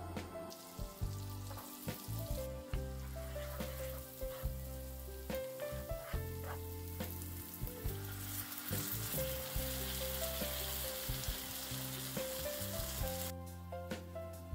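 Food frying in oil in a pan, a steady sizzle that starts about half a second in and cuts off near the end, under background music.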